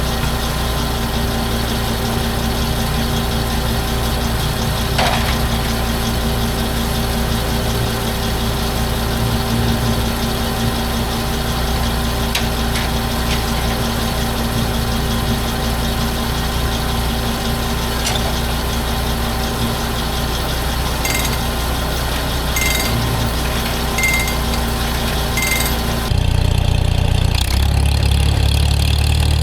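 Tractor engine idling steadily while it warms up to run the sawmill's hydraulics. A few light clicks are heard, and four short high tones come about a second and a half apart late on. Near the end the engine note turns deeper and louder.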